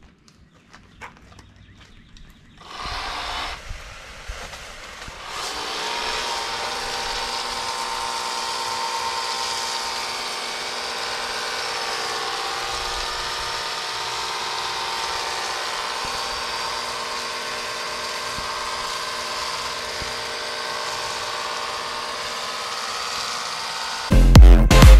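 Ryobi 40V cordless handheld pressure washer starting a few seconds in, then running steadily: its electric pump motor hums under the hiss of water spraying through the foam blaster attachment. Loud electronic dance music cuts in near the end.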